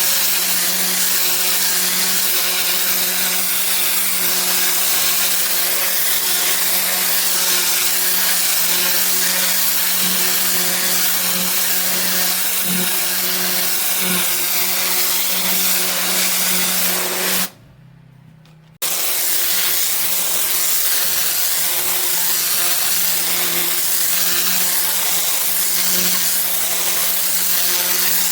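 Pressure washer with a rotating turbo nozzle blasting water onto block paving: a steady loud hiss of spray over the machine's steady hum. The sound cuts out abruptly for about a second about two-thirds of the way through, then resumes unchanged.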